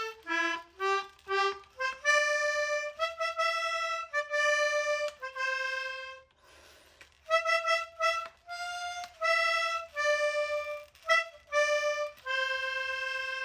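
Outro music: a slow single-line melody of held notes played one at a time, with a short break about six seconds in.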